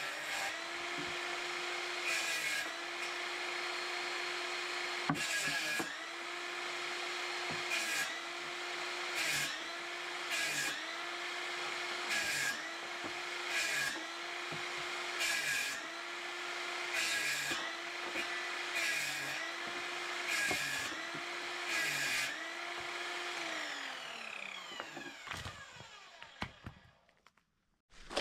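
Einhell TE-TS 36/210 cordless table saw running with a steady motor whine and making about a dozen short cuts through wood. Each cut pulls the motor pitch down briefly under load and adds a burst of cutting noise. Near the end the saw is switched off and winds down to a stop, followed by a single knock.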